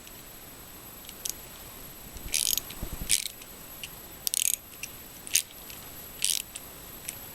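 Hand ratchet driving a self-tapping screw into the new carburetor's untapped hole, the screw cutting its own threads: about half a dozen short, irregular bursts of metal clicking and scraping.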